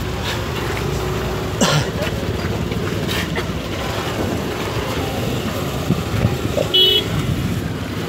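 Steady engine rumble and crowd noise, with a few sharp knocks and a short vehicle-horn toot near the end.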